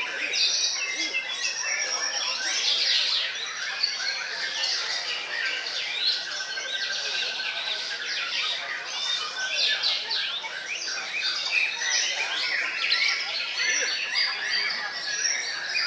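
White-rumped shamas (murai batu) singing: a dense, unbroken stream of fast whistles, trills and chattering phrases from several caged birds at once.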